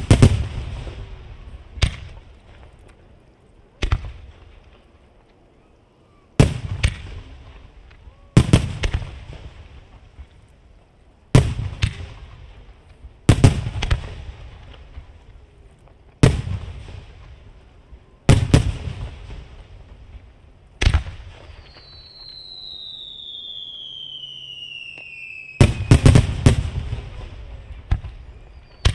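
Aerial firework shells bursting, a sharp boom about every two seconds, each trailing off in an echoing rumble. Late on, a long whistle falls in pitch, followed by a quick cluster of several bangs.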